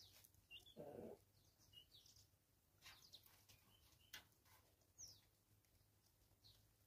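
Faint, short bird chirps scattered through, a few of them falling in pitch, with a brief low sound about a second in and a few soft clicks.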